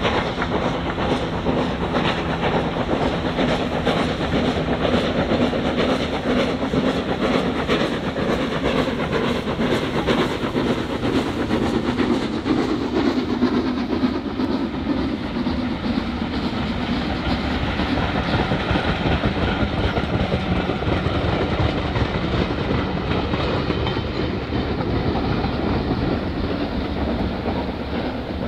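Steam locomotive hauling a passenger train past, with a rapid beat of exhaust and the clatter of coach wheels over the rail joints. Around halfway through the sound turns duller and a tone slides down in pitch as the train passes and draws away.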